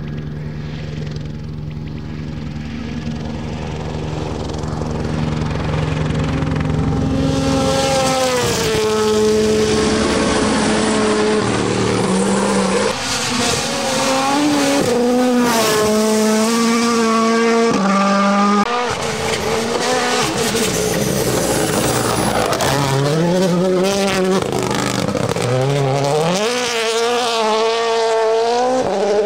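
WRC Rally1 cars, Toyota GR Yaris and Ford Puma with turbocharged 1.6-litre four-cylinder engines, flat out on a gravel stage. The engine is quieter for the first several seconds, then loud from about eight seconds in, revving hard with quick gear changes that step the pitch up and down and rising revs near the end.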